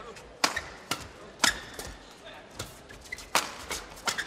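Badminton rackets striking the shuttlecock in a fast doubles rally: about seven sharp hits, roughly half a second apart, the loudest about a second and a half in.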